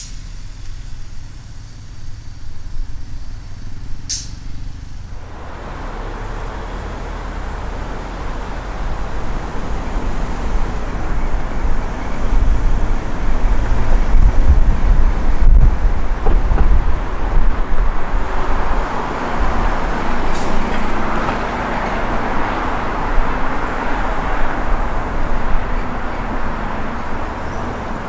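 Road and traffic noise from a car driving on a city expressway. Low and quiet at first, with a sharp click at the start and another about four seconds in; from about five seconds the tyre and traffic noise swells into a heavy rumble, loudest in the middle, then becomes a brighter hiss later on.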